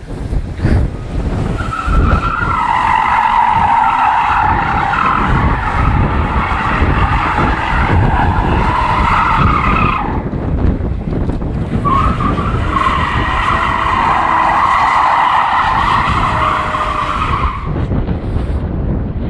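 BMW E36 320i coupe's M52B20 2.0-litre straight-six running under load while its rear tyres squeal through two long drifts, the first lasting about eight seconds and the second about five, with a short break about ten seconds in.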